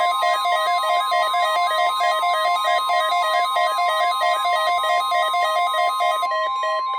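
A NOAA Weather Radio 1050 Hz warning alarm tone, one steady high tone, sounds through a weather radio receiver during a weekly test. A rapidly warbling electronic alarm sounds with it and stops about six seconds in, while the steady tone holds on.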